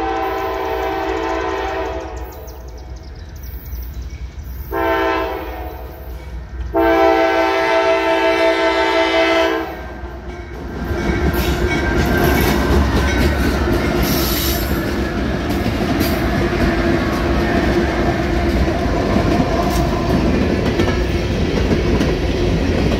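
A freight diesel locomotive's multi-chime air horn sounds the end of a grade-crossing signal. One long blast ends about two seconds in, a short blast follows, then a final long blast. After that the CSX locomotives pass close by with engines running and wheels clattering over the rail joints, followed by empty coal hoppers rolling past.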